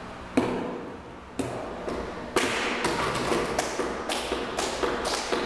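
Flamenco palmas: several people clapping their hands to keep the rhythm. A few sparse claps come first, then a quicker run of claps from about two seconds in.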